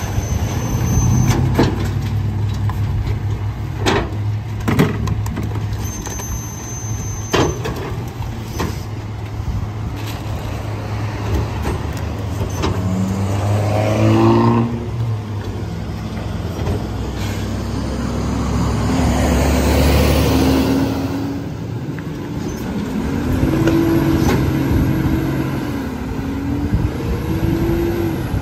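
Rear-loader garbage truck's diesel engine running, with sharp knocks of bags and bins dropped into the hopper over the first several seconds and a rising whine around the middle. Near the end the engine note rises and falls as the truck moves off.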